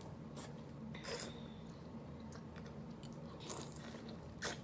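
Quiet eating sounds: biting and chewing corn on the cob and boiled shrimp, with a few short wet smacks and clicks, over a faint steady hum.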